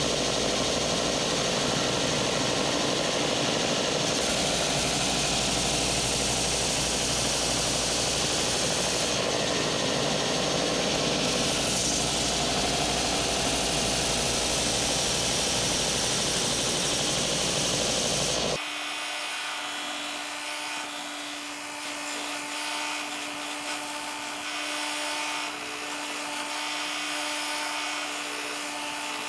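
BUCKTOOL 4-inch direct-drive belt sander running steadily while the face of an edge-grain hardwood cutting board is sanded on its 240-grit belt. About two-thirds of the way through the sound cuts abruptly to a somewhat quieter, thinner running sound with a steady hum.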